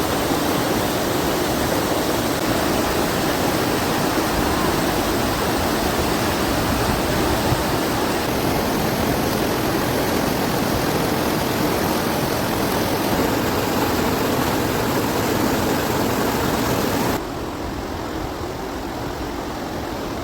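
Waterfall rushing: a steady wash of falling water that drops abruptly to a quieter level about 17 seconds in.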